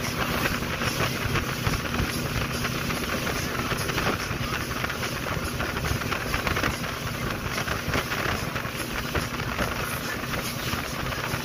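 Motorboat running at speed across choppy water: a steady rush of wind and spray with the engine's low drone beneath, wind buffeting the microphone.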